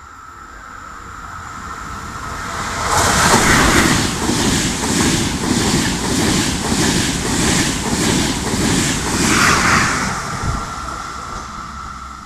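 Trenitalia Intercity train passing along the platform: the noise builds as it approaches, then the coaches run by with a rhythmic beat of wheels over the rails, about two strokes a second, before fading away near the end.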